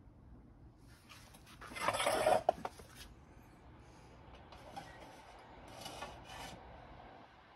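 Brief rasping, rubbing handling noise, loudest about two seconds in with a few small clicks, then a couple of fainter rubs as a hand and the camera move around metal pressure lanterns.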